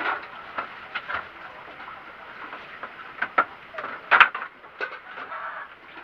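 Irregular knocks and clatter of wood being handled and struck during carpentry repair of a bed frame. The loudest knock comes a little after four seconds in.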